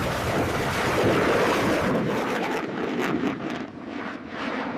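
Steady rushing noise, loud at first and easing off about three and a half seconds in.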